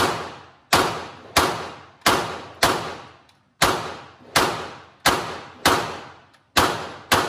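A 9mm Glock pistol fired in a steady string of eleven shots, roughly one and a half a second, with a short pause after the fifth. Each shot is followed by a fading echo.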